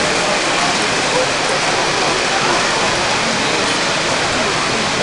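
Steady hubbub of a crowded exhibition hall: many voices at a distance blending into an even wash of noise, with no single voice standing out.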